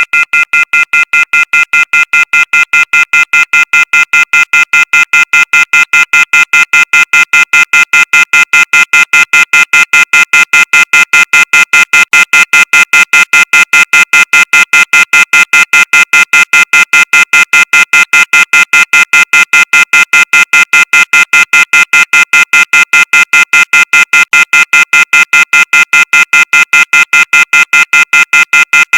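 Synthesized emergency alert tone: a chord of high electronic tones beeping on and off evenly, about five times a second, without pause.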